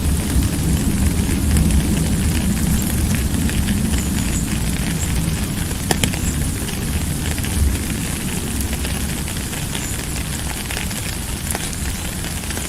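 Steady rain, a dense even hiss with a deep low rumble beneath it and a few sharp drip-like taps, one near the start and one about six seconds in.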